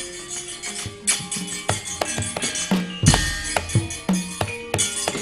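Javanese gamelan playing for a wayang kulit battle scene: quick drum strokes and clattering percussion over held metallophone tones, with a loud crash about three seconds in.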